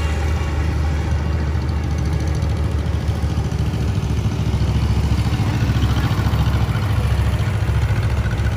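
Antique farm tractor engine running steadily at low speed, with a low, even beat of firing pulses that gets a little louder about halfway through.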